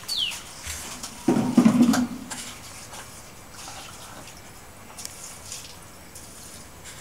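Water spraying from a garden hose nozzle, a steady hiss, with a louder burst of sound lasting under a second about a second and a half in. A single falling bird chirp right at the start.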